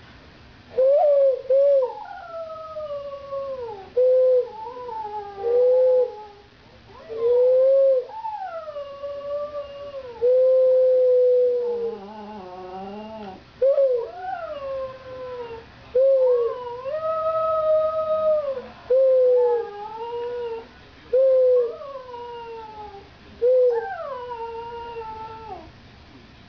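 Border terrier howling: a long run of howls, most sliding down in pitch from a higher start, with short louder notes and brief pauses between them.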